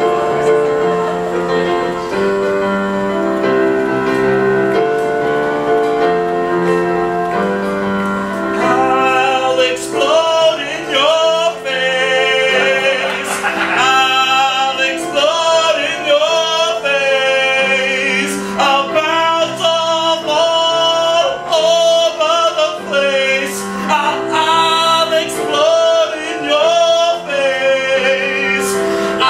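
Music with a group of men and women singing: held chords at first, then about eight seconds in, voices with vibrato come in over them and carry the melody.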